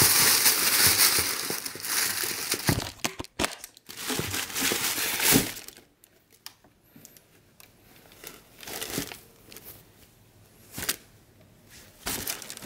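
Tissue paper crinkling and rustling as it is pulled out of a shoebox, dense for the first five seconds or so, then quieter, scattered rustles with a few louder handling sounds.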